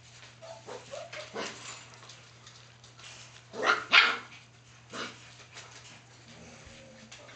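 Four-week-old German Shepherd puppies yipping and barking. A few small whines come in the first second or two, then two loud, sharp barks in quick succession about halfway through, and a shorter one a second later.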